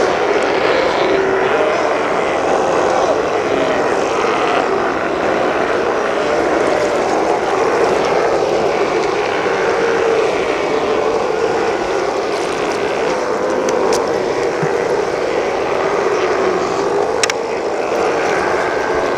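A large colony of sea lions calling all at once, many overlapping barks and bellows merging into a continuous loud din.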